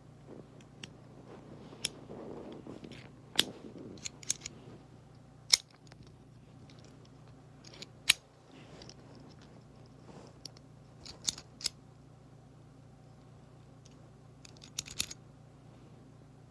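Hands unpacking a small box and its parts: a soft rustle about two seconds in, then scattered sharp clicks and snaps, some in quick pairs.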